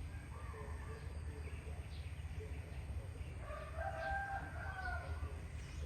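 A drawn-out animal call lasting about two seconds, starting about three and a half seconds in, over a steady low rumble.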